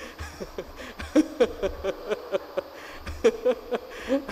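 A man laughing into a handheld microphone, in quick repeated "ha-ha" pulses. There are two bouts of laughter, the second starting about three seconds in.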